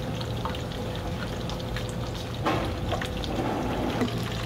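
Hot oil crackling and sizzling in a deep-frying pan, over a steady low hum. Partway through come louder wet squishing sounds as a hand works shredded vegetables and shrimp through tempura batter in a steel bowl.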